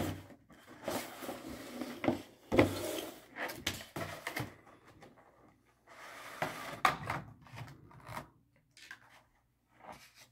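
Cardboard box and clear plastic blister packaging being handled on a wooden table: irregular scraping, rubbing and rustling with sharp clicks as the box is slid open and the plastic tray and lid are pulled apart.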